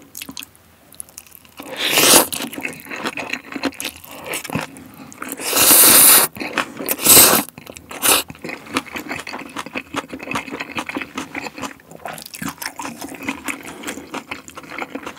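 Close-miked eating of jjajangmyeon noodles with crunchy green onion kimchi: a few loud noodle slurps about two and six seconds in, then steady wet chewing with many small crunches and clicks.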